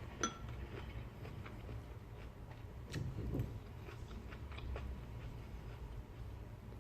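Close-up sounds of someone eating fried fish: chewing and small clicks of handling the food, with a short ringing clink just after the start, like a utensil on a dish. A steady low hum runs underneath.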